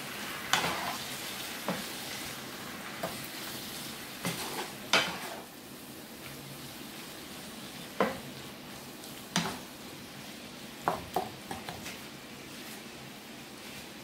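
Wooden spatula scraping and knocking against a frying pan as chopped peppers, onions and grated tomato are stirred, over a steady sizzle from the pan. The strokes come irregularly, about eight of them, and stop about twelve seconds in, leaving only the sizzle.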